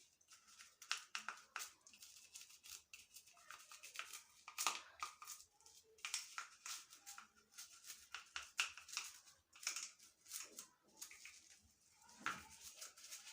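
Toothbrush bristles scrubbing the plastic parts of an electric shower head: a quiet, irregular run of short scratchy strokes.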